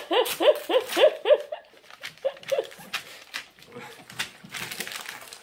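Boston terrier giving a rapid run of short, rising squeaky cries, about four a second, for the first second and a half, with two more about two seconds in. After that comes paper crinkling and rustling as the dog mouths and tugs at a glossy brochure.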